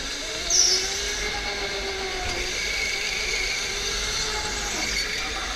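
OTL Storm electric go-kart's motor whining under power, its pitch drifting gently up and down with speed, over a steady rush of tyre and air noise. A brief high squeal about half a second in.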